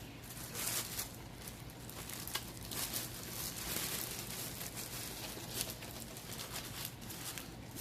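Rustling and light clicks of packaging being handled as speakers are unpacked from their box, over a faint steady low hum.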